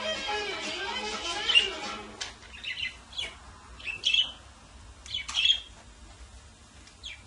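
Pet budgerigars chirping: short, sharp calls, one every second or so, sometimes two in quick succession.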